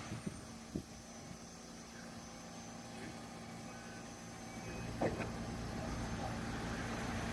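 Asunarou Railway narrow-gauge electric train running, with a steady low hum and a rumble that grows louder from about halfway through; a sharp click about five seconds in.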